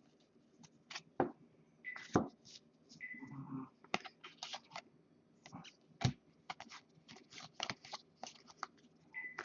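Trading cards being flipped through by hand one after another: a quiet run of irregular flicks and snaps of card stock, a few a second and quicker in the second half.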